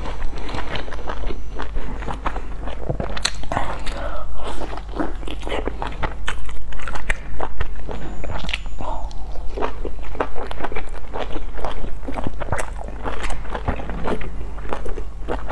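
Close-miked chewing and wet mouth sounds of someone eating soft steamed dumplings, many quick irregular smacks and squelches, over a steady low hum.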